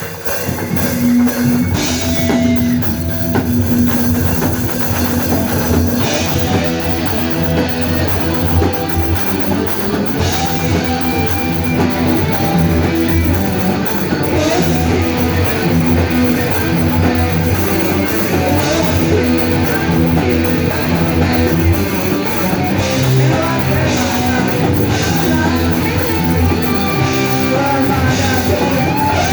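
Rock band playing live: electric guitar, bass and drum kit, with a singer's voice.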